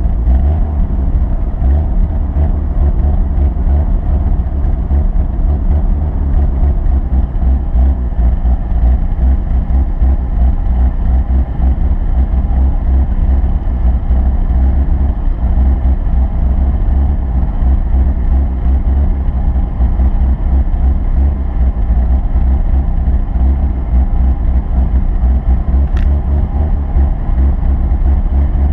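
Vehicle engine running steadily with a loud low rumble, with one sharp click near the end.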